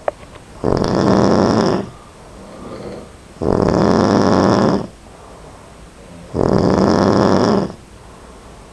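A person snoring loudly: three long snores about three seconds apart, each lasting just over a second, with quieter breathing between them.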